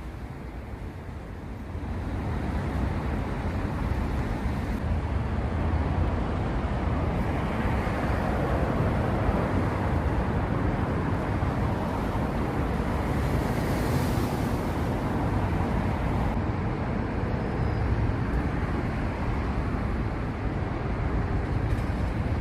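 Steady low rumbling noise with no distinct events, rising in level about two seconds in.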